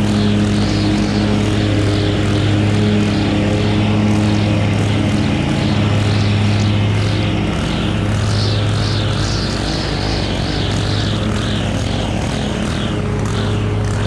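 Stihl FS 91 R string trimmer running steadily at cutting speed, with a repeated swish as the line sweeps through dry grass and weeds in a gravel bed.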